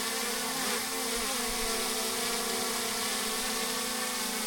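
A quadcopter camera drone's propellers buzzing close by as it is brought in to land. The pitch shifts briefly about a second in as the motors adjust.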